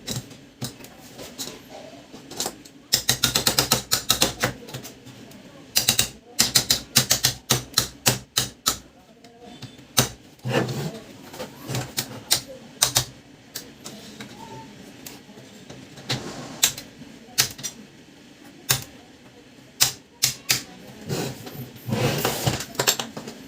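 Clicking, rattling and ratcheting of screws and plastic and metal parts of a Brother MFC-7360 laser printer being worked on by hand during refitting of its main motor and gear unit. There are irregular single clicks, with fast runs of clicks about three seconds in, around six to nine seconds in, and near the end.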